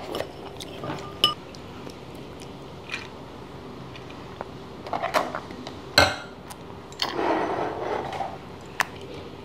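Ceramic bowls, cups and utensils clinking and knocking as people eat at a table: scattered light clicks, with a sharper knock about six seconds in.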